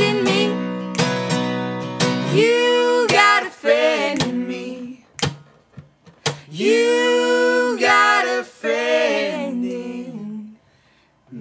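Soundtrack song: acoustic guitar and a singing voice, with a pause partway through, ending in a last sung phrase that dies away near the end.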